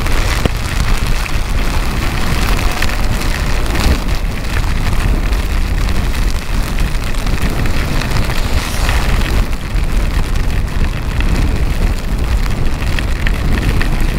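Heavy rain and wind rushing over a camera on a moving motorcycle: a loud, steady noise with a heavy low rumble of wind.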